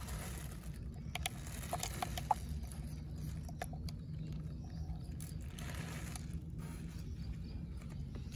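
Scattered light clicks and crinkles of a cut-down plastic bottle being handled, over a steady low hum.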